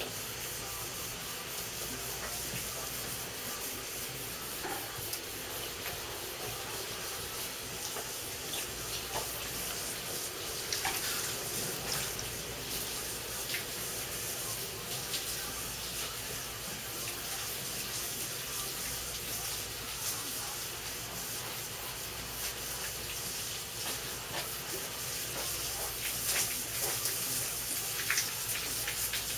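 Hand wet-sanding with 1500-grit paper on a hard pad, rubbing over the gloss black paint of a motorcycle side cover: a steady scratchy hiss of paper on paint, with louder strokes now and then. This is color sanding of fresh paint to level orange peel and a slight run.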